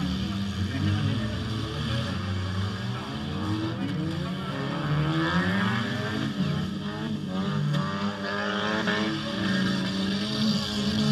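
Engines of several demolition-derby cars revving, their pitch rising and falling as they accelerate around the dirt arena.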